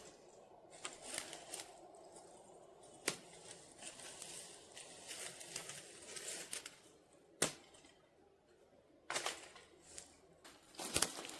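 Rustling and crackling of brush and twigs being handled or walked through, with two sharp snaps about three seconds in and again midway.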